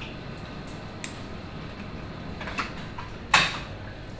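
Plastic fittings of a hanging fluid bag being handled: a few light clicks and one louder clack about three seconds in, over a steady room hum.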